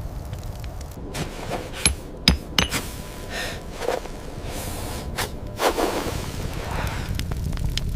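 Film sound-effects layer: a low steady rumble, with a handful of sharp knocks and cracks in the first few seconds and a few short rushing swells through the middle.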